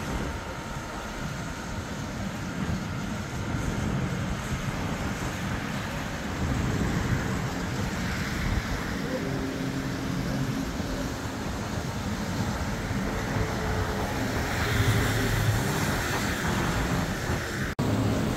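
Steady mixed vehicle rumble of passing traffic, with wind noise over it; the sound drops out briefly near the end.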